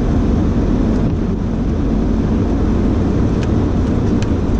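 Car driving through fresh snow: a steady low rumble of engine and tyres, with a couple of short clicks late on.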